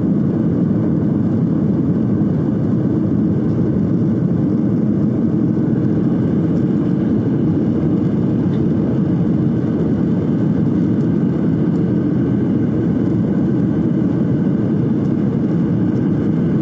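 Jet airliner cabin noise in flight: the engines and rushing air heard from a window seat, a steady low noise that stays even throughout.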